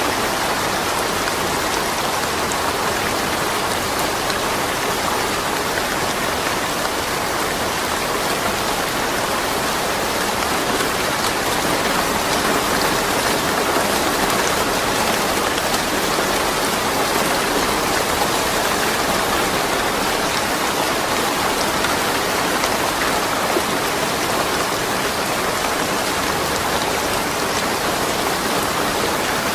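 Steady rain falling, a continuous even hiss of raindrops on surfaces with no thunder.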